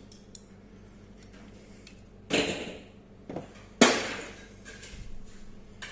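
Metal parts being handled on a steel workbench: a short scraping clunk about two seconds in, then a sharp knock a second and a half later, followed by a few light clicks.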